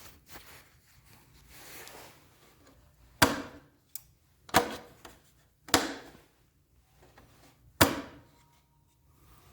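Four sharp knocks, each with a short ring after it, spaced about one to two seconds apart, among softer handling noises in the first few seconds.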